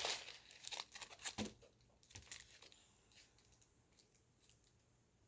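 Paper and plastic packaging being handled: crinkling and rustling with a few sharp taps in the first two seconds or so, then only faint scattered ticks.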